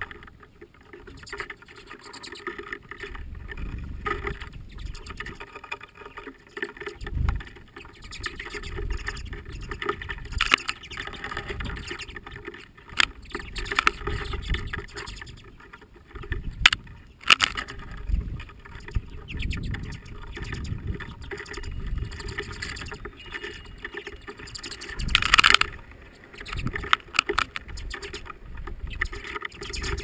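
Common redpolls flocking at a wooden platform feeder of sunflower seed, with frequent clicks and knocks of birds landing and pecking and wings fluttering close to the microphone, over gusting wind rumble on the mic. A loud rustling flurry comes about three-quarters of the way through.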